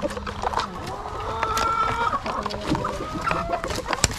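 Chickens clucking, with one drawn-out call about one and a half seconds in, over scattered clicks and knocks.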